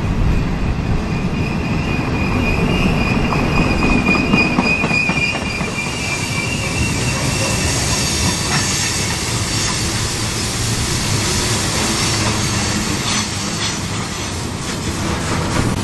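Freight train rolling past with a continuous rumble, its wheels squealing against the rails. A steady high-pitched squeal holds for the first several seconds, then gives way to a rougher, hissing screech.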